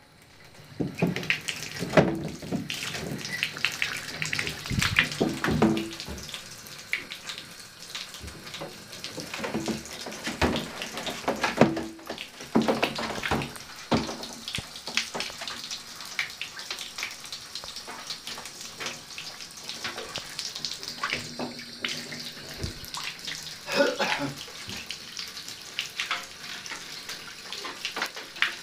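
Water running from a bathtub faucet with a steady hiss, with splashing and irregular knocks and bumps as a young raccoon scrambles about in the wet tub and a plastic basin.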